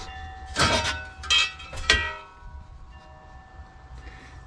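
Bead-blasted sheet-steel EXIT sign parts clanking against each other inside a steel blast cabinet: three metallic clanks in the first two seconds, each leaving a ringing tone that fades.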